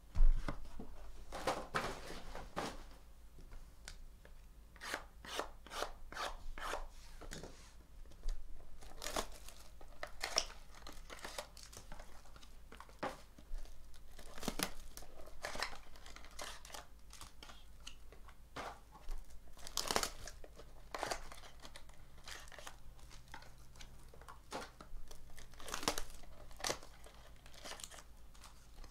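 Trading-card pack wrappers being torn open and handled: irregular crinkling and tearing of foil and plastic. A sharp knock right at the start is the loudest sound.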